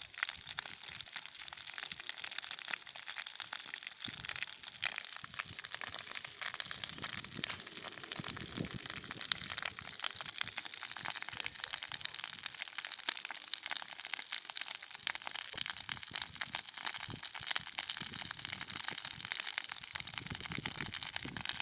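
Dry grass burning, with a dense, irregular crackling and popping that keeps going.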